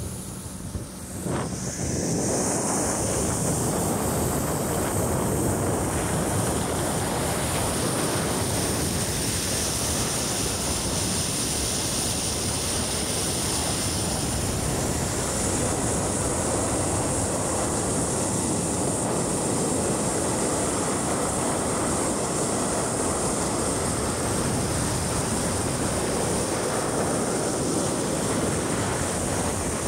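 Wind rushing over the microphone and water rushing along the hull of a moving pontoon boat, as a steady loud noise with a high hiss on top. It gets louder about a second and a half in.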